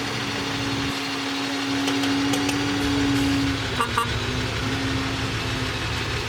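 Diesel engine of heavy earthmoving machinery running, with a steady whine that swells about three seconds in, then dips and carries on. A few short metallic clinks sound around the middle.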